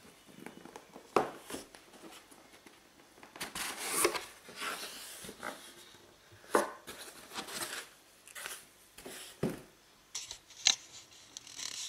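A cardboard model box and its foam insert handled by hand as it is opened: irregular scrapes, knocks and rustles, with sharper knocks about a second in and several more through the middle.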